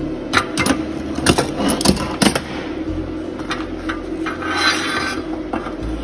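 Freshly TIG-welded steel subframe connector box being handled and flipped over: several sharp metallic knocks and clinks in the first two and a half seconds, over a steady hum.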